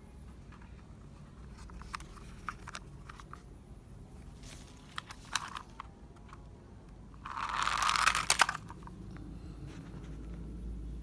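Handling noises from toy vehicles being played with: scattered small clicks and knocks, and a louder burst of rustling noise lasting about a second, about seven seconds in.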